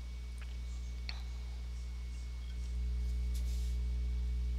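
Steady electrical hum with a faint thin high whine, the background of the recording setup, with a couple of faint clicks about half a second and a second in.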